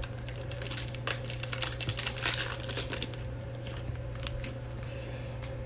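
Crinkling and light clicking of trading-card pack wrappers and cards being handled, busiest in the first few seconds, over a steady low hum.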